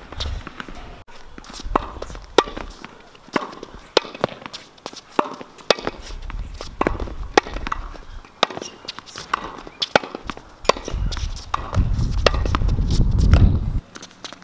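Tennis balls struck by rackets and bouncing on a hard court: a string of sharp pops and knocks every half second to a second, with shoe scuffs between them. A low rumble rises over the last few seconds and cuts off suddenly.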